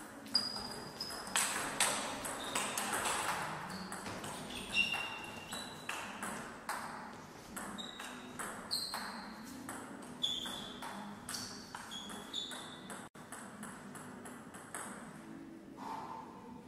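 Table tennis rally: the plastic ball clicking off the bats and pinging on the table in a quick back-and-forth, each bounce a short, bright ping. The hits thin out in the last few seconds.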